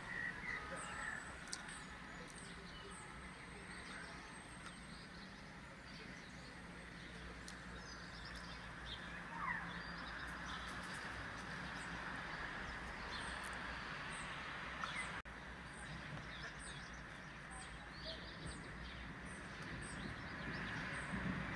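Outdoor ambience: a steady background hiss with faint bird chirps repeating about once a second.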